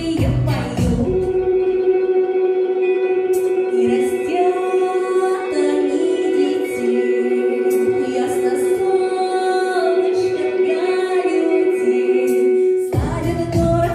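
A woman sings a Russian folk-style song over a backing track. About a second in, the drums and bass drop out, leaving one long steady held note under the moving melody. The full beat comes back just before the end.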